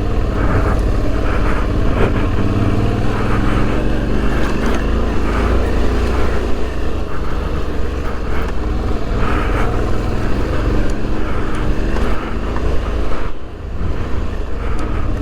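Suzuki V-Strom 650's V-twin engine with an aftermarket Delkevic exhaust running steadily under throttle while riding off road. The throttle eases off briefly near the end.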